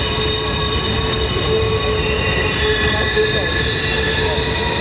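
Freight car wheels squealing against the rails as a loaded trash train rolls through a tight curve: the flanges grinding on the curved rail. Several steady high-pitched squeal tones sound over the constant rumble of the wheels.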